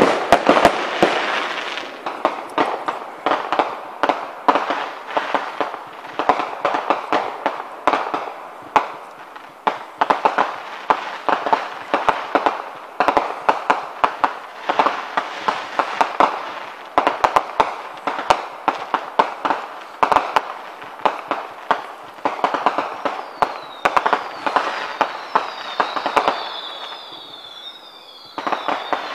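Fireworks going off in a dense run of sharp bangs and crackles. Near the end a string of short high whistles, each gliding down in pitch, sounds over the bangs.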